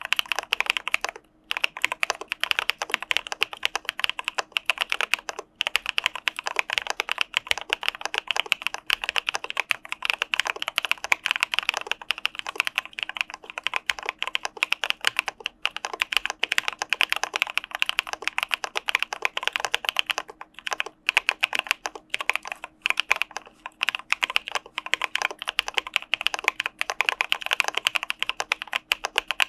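Continuous fast typing on an Arisu Alice-layout mechanical keyboard with Cà Phê Sữa Đá linear switches, a dense run of key clacks with a couple of brief pauses.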